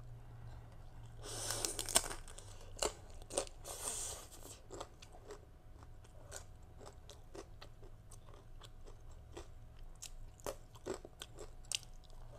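Close-up crunching of a sesame rice cracker (bánh đa) topped with shrimp and green mango salad: a crisp bite about a second in and another around four seconds, then steady chewing with many small, sharp crackles.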